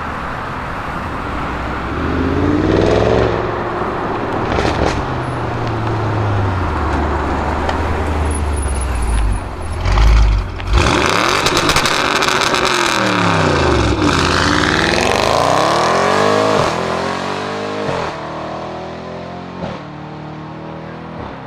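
Audi RS6 Avant C7 twin-turbo V8 through a Milltek exhaust. It revs up about two seconds in, then runs at a steady low note. After that it accelerates hard, its pitch sweeping down and climbing again, with a few sharp cracks from the exhaust.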